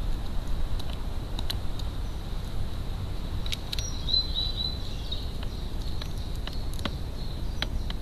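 Crow pecking mealworms from a plastic tray feeder: scattered sharp taps of its beak on the tray, over a steady low rumble. A few faint high chirps from another bird come about four seconds in.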